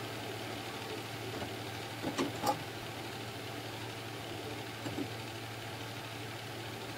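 A steady low hum, with a few faint clicks about two seconds in and again about five seconds in.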